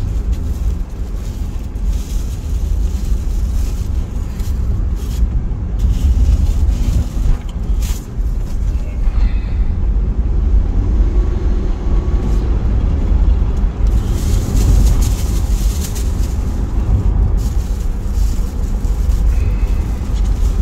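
Road noise inside a moving car's cabin: a steady low rumble of engine and tyres on the road, with a hiss that rises and falls in the upper range.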